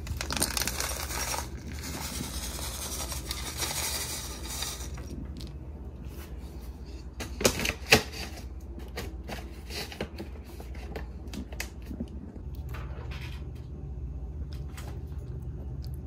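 Dry cat kibble poured from a cup, rattling into a ceramic bowl for about the first five seconds. Two sharp knocks follow a little past halfway, then a cat eating the kibble from the bowl, with scattered small crunching clicks.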